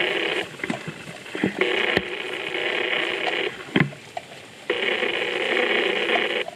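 A phone ringing, its ring tone repeating in blocks about two seconds long with about a second between them. The first ring ends half a second in and two more follow. A sharp click comes between the second and third rings.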